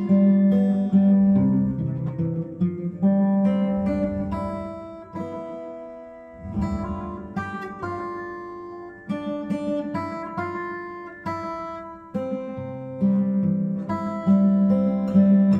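Solo acoustic guitar playing a slow instrumental interlude, single plucked notes and chords that ring and die away between attacks.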